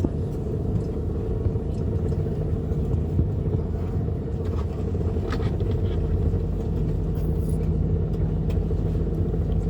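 Steady low rumble and hum of the ventilation in the cabin of an Airbus A220-300 waiting at the gate, with a few faint clicks; a steady hum grows stronger about seven seconds in.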